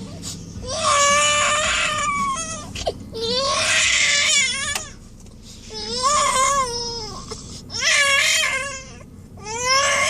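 An infant crying in five long wails, each rising and then falling in pitch, about one every two seconds. Faint snoring runs underneath.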